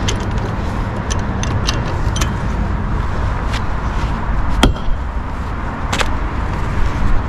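Scattered sharp clicks and knocks of tools and metal parts being handled during work on a car's front suspension, over a steady low rumble; the loudest knock comes a little past halfway.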